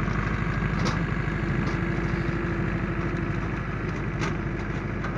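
Ursus C-360 tractor's four-cylinder diesel engine running steadily as it pulls a trailed sugar-beet harvester past, with a couple of faint knocks from the machinery.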